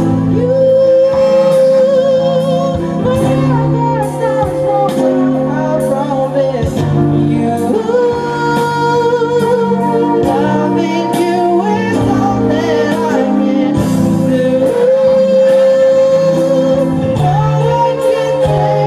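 Live band playing a slow ballad: a long, held, slightly wavering melody line over steady keyboard chords, from a male singer and a saxophone. The melody pauses briefly about a third of the way in and again about two thirds of the way in.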